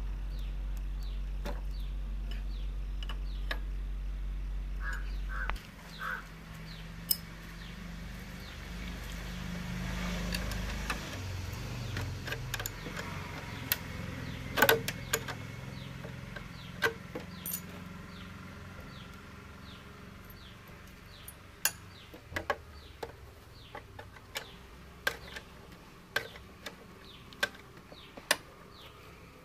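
Metal spanner clicking and knocking against the front fork's top nut and stem bolts of a Hero Honda motorcycle as they are loosened, in scattered sharp clicks. A steady low hum underneath stops about five seconds in.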